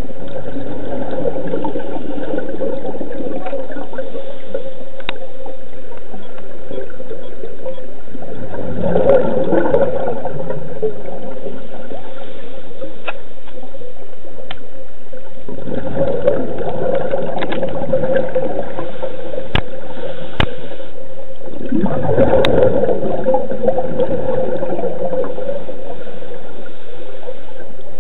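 Scuba diver's regulator exhaust bubbling underwater, heard through the camera: breaths released in bursts several seconds apart over a steady hum, with a couple of sharp clicks about two-thirds of the way in.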